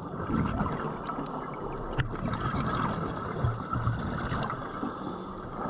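Underwater water noise on a seabed dive: a steady rush with gurgling, and one sharp click about two seconds in.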